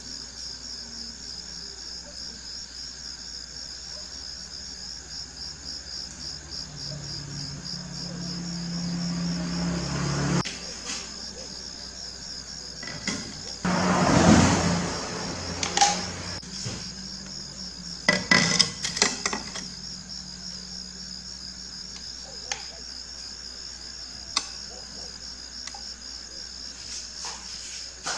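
A cricket trills steadily and fast in the background. Over it come the sounds of glass panes being handled on a table: a loud rushing scrape about halfway through and a handful of sharp clinks and taps.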